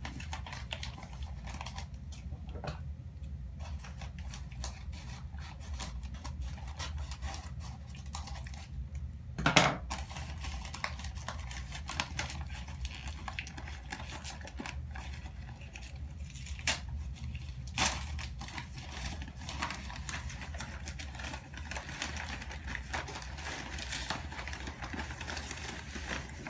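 Rustling, crinkling and small clicks of orchid packing material and loose potting bark being handled, with a couple of louder knocks, over a steady low hum.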